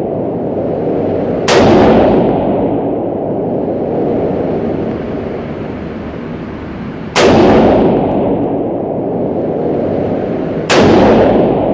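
Three single gunshots, the first about a second and a half in, the next two about three and a half seconds apart near the end, each a sharp crack followed by a long echoing decay.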